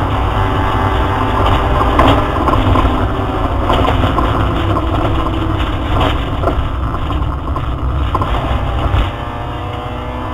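Opel Astra GSi rally car's engine heard from inside the cabin at stage pace, its note rising and falling as it revs up and shifts, with a few sharp knocks. The level drops about nine seconds in as it comes off the throttle, then the engine starts climbing again near the end.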